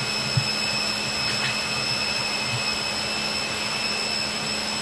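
Steady roar of running machinery in a ship's boiler room while underway, with a couple of faint clicks about half a second and a second and a half in.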